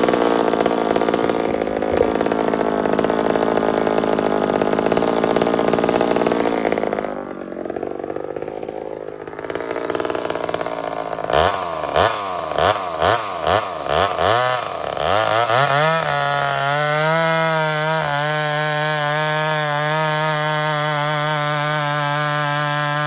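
Vintage Homelite two-stroke chainsaw running at high speed for the first several seconds, then dropping off. About halfway through the throttle is blipped about six times, the revs rising and falling, before the saw settles into a steady idle.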